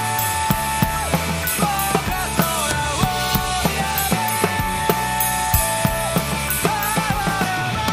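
An acoustic drum kit played along to a recorded rock song, with sharp drum and cymbal strokes keeping a steady beat over the band and a sung melody.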